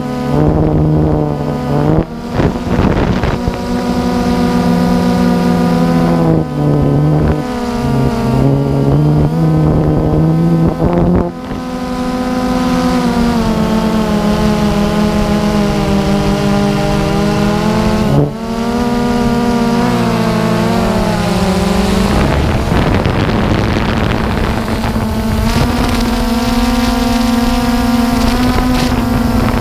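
DJI Phantom 2 quadcopter's motors and propellers whining in flight, the pitch shifting up and down every few seconds as the drone changes speed and direction, with brief dips and wind buffeting in the later part.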